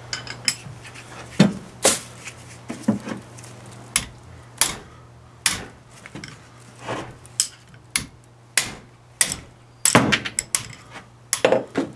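Irregular metal knocks and clanks of a wrench working a ring gear bolt loose on a Dana 44 differential carrier, about twenty over twelve seconds, some with a short ring. A faint steady low hum runs underneath.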